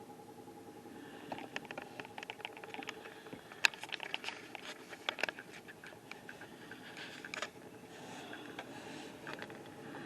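A run of irregular light clicks and taps, one sharper than the rest about a third of the way in, over a faint steady hum.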